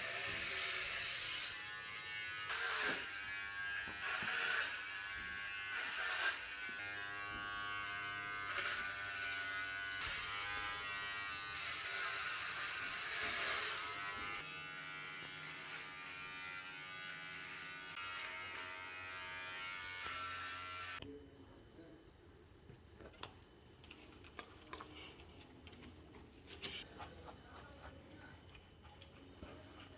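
Background music of sustained, buzzy held notes that change pitch every few seconds, cut off abruptly about two-thirds of the way in. After that there is faint room sound with a few clicks.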